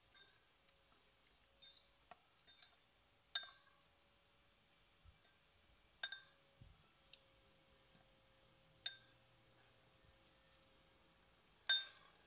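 Metal fork clinking and scraping against a ceramic bowl while stirring salad, in scattered sharp clinks a second or more apart, a few of them louder. A faint steady hum lies underneath.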